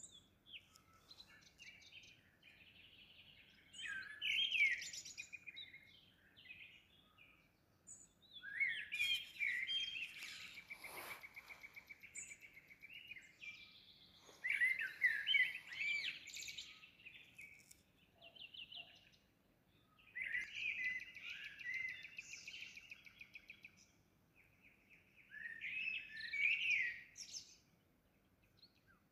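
Songbirds singing: phrases of quick high chirps and trills, a few seconds long, coming again every few seconds with short pauses between.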